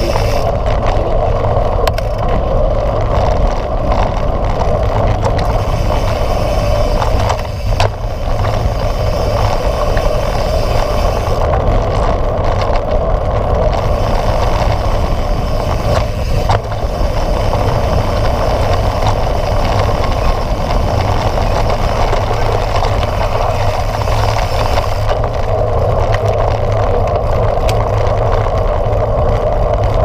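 Mountain bike rolling fast downhill on a dirt track: a steady rush of tyre and wind noise with occasional clicks and rattles from the bike over bumps. The noise eases briefly twice.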